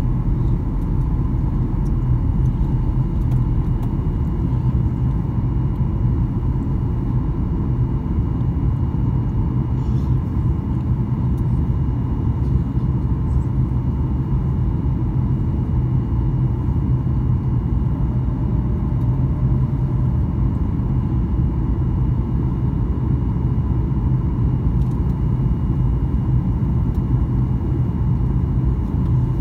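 Steady cabin noise inside a Boeing 737-800 descending on approach with flaps extended: a constant low rumble of airflow and engines, with a faint steady whine above it.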